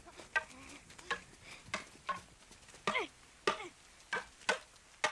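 Wooden practice swords (bokken) clacking together in a sparring drill, with about nine sharp knocks, roughly two a second.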